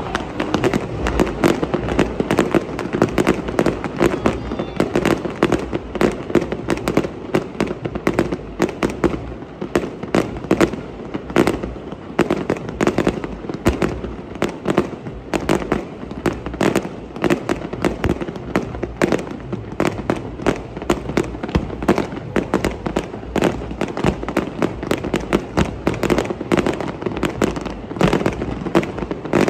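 Fireworks display: aerial shells and comets firing and bursting in a dense, continuous barrage of bangs and crackle, many reports each second.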